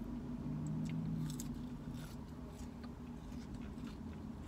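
A person chewing McDonald's French fries with the mouth closed, giving a few faint soft clicks, over a steady low hum.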